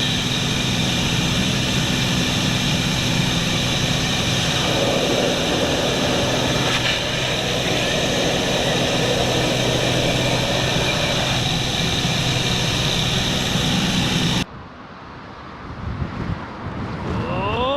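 An aircraft engine drones steadily and loudly under a noisy rush, then cuts off abruptly about fourteen seconds in. A quieter stretch follows, with a rising, wavering pitched sound near the end.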